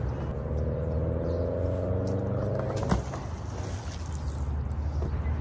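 A motor engine running steadily, rising slightly in pitch over the first three seconds, with a sharp click about three seconds in; the engine sound stops abruptly at the very end.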